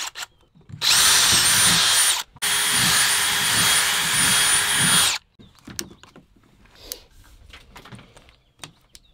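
Cordless drill boring through PVC pipe in two runs, about a second and a half and then nearly three seconds, with a high steady whine. After it stops there are faint clicks of a metal snap clip being fitted onto the pipe.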